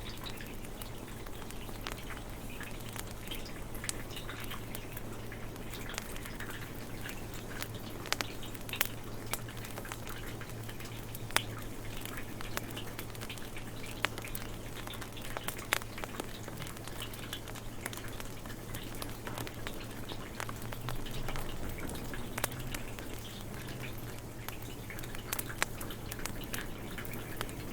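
Wood fire crackling, with irregular sharp pops and snaps over a steady hiss of rain.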